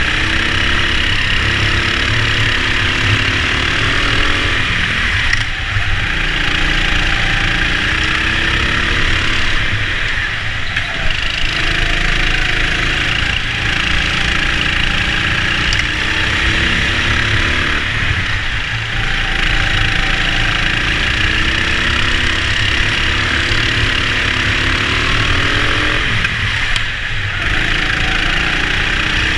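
Racing go-kart's motor rising in pitch as it accelerates and falling away into the corners, several times over, with a steady rush of noise on the onboard microphone.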